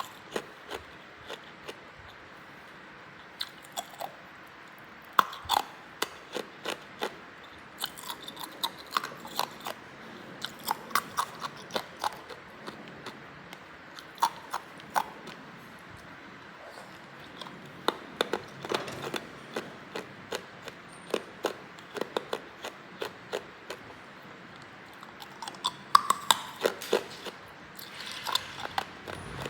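A person biting and chewing hard ice close to the microphone: sharp cracking crunches come in irregular runs, with short pauses between bites.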